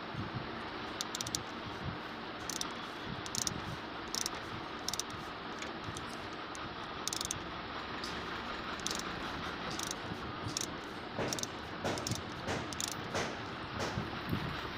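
Scattered, irregular light metal clicks and rattles of hand tools working on a steering column bolt, over a steady low hiss.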